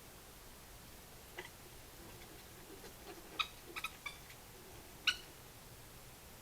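Badger making a few short, high squeaks in quick succession during a scuffle, the loudest one coming near the end.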